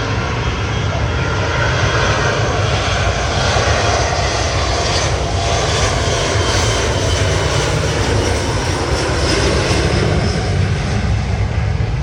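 Jet airliner taking off, its turbofan engines at takeoff power: a loud, steady rumble and roar, with a whine that falls in pitch about halfway through as the plane passes.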